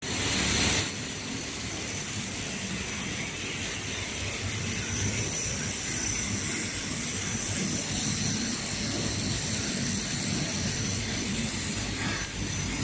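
HP-1800 automatic hot film microperforation machine running: a steady mechanical hiss and hum with faint high tones, after a louder rush in the first second.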